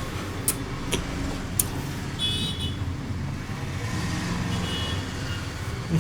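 Road traffic running steadily in the background, with a few sharp clicks in the first two seconds and a brief high-pitched tone a little after two seconds.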